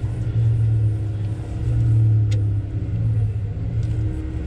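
Heavy diesel engine running steadily at idle, a deep drone that swells and eases about every second and a half.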